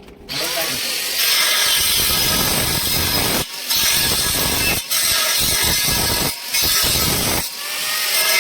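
Power tool running under load on stainless steel railing work. It starts just after the beginning, drops out briefly three times and stops shortly before the end.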